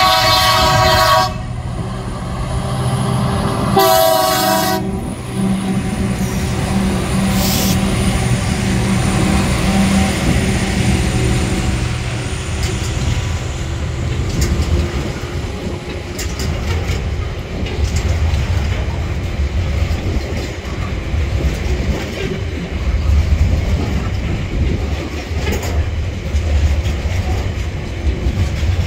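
Freight train passing: a diesel locomotive horn sounds twice, a short blast at the start and another about four seconds in, then the lead diesel locomotives drone by working hard uphill. A long line of container wagons follows, rolling past with a steady low rumble and clickety-clack.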